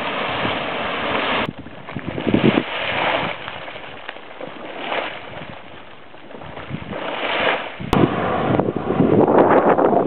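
Geyser erupting: a rushing hiss of water and steam that swells and fades, with wind buffeting the microphone. The sound changes abruptly twice, about a second and a half in and near the end.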